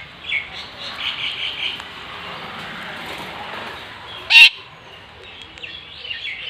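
Pet parakeet giving a series of short, high calls, with one much louder, sharp call about four seconds in.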